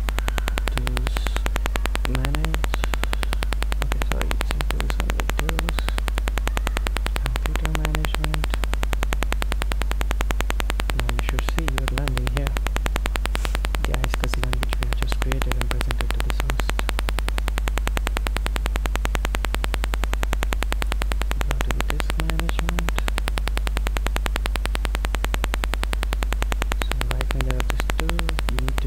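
Loud, steady electrical hum and buzz from a faulty microphone, unchanging throughout. Faint, muffled low sounds come and go beneath it.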